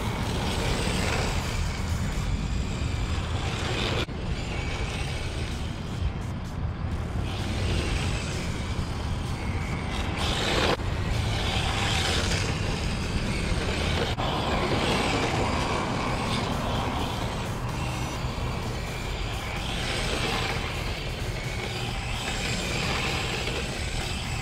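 Yokomo YD-2 SX III radio-controlled drift car sliding around on asphalt: the hissing scrub of its hard drift tyres and the whine of its electric motor, swelling several times as it sweeps past close by. A steady low rumble sits underneath.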